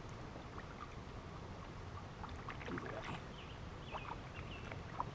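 Small sounds of a person moving in a kayak on the water: scattered light knocks and rustles over a steady low rumble, with a few short high chirps.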